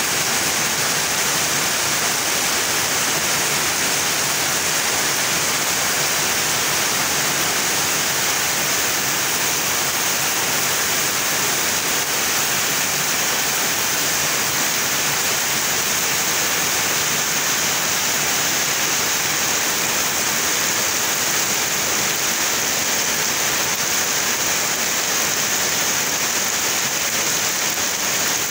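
Heavy rain pouring steadily onto trees and foliage, a dense, even hiss with no letup.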